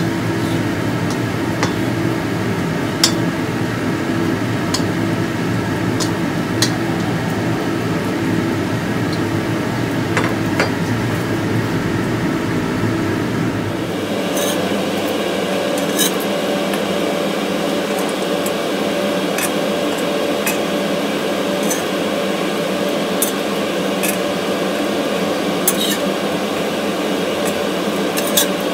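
Corn fritters frying in oil in a stainless steel wok over a steady hiss, with a metal spatula clinking against the wok now and then as they are turned. The background changes about halfway through.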